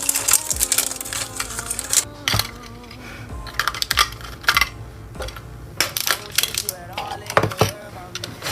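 Quick clicks, taps and rattles of hard plastic toy packaging being handled and opened, over quiet background music.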